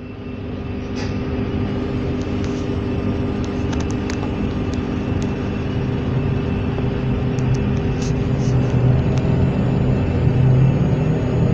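Motor car of an SNCF Z 20900 electric multiple unit running, with steady hums from its electrical equipment over a low rumble that grows louder in the second half. A few sharp clicks and knocks are scattered through it.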